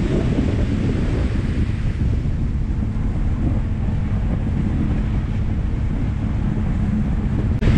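Heavy wind buffeting the microphone on a speedboat running at speed, over the steady drone of its engine and the rush of water along the hull.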